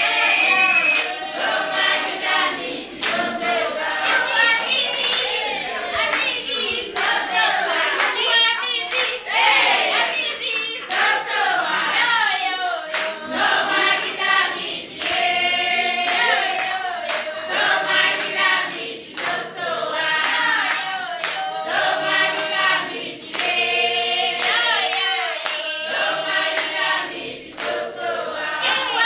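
A group of people singing together in a celebratory song, with hand clapping throughout.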